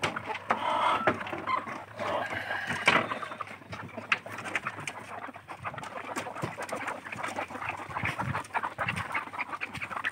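A flock of country (natukodi) chickens calling and clucking, loudest in the first three seconds, then quieter, with scattered short ticks.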